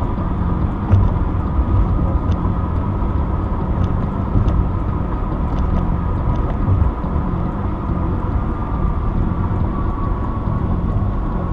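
Steady road and engine noise inside a moving car's cabin: a continuous low rumble with a faint steady hum.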